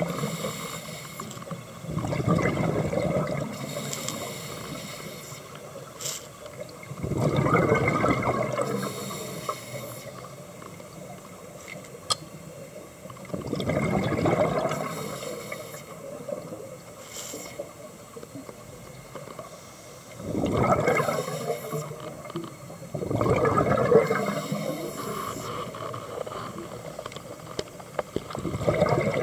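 Scuba diver's regulator breathing underwater: bubbling exhalations that surge every few seconds, about six in all, with a quieter steady wash between them.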